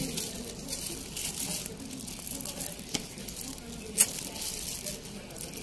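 Light handling noise of a smartphone held in the hand and tapped on its touchscreen, over a faint steady hiss. There are a few sharp clicks, the loudest about four seconds in.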